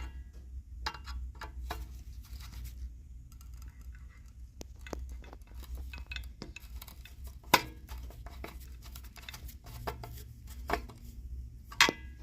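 Irregular metallic clicks, taps and clinks of a steam boiler fitting being tightened down by hand, with two sharper knocks, one past the middle and one near the end, over a steady low hum.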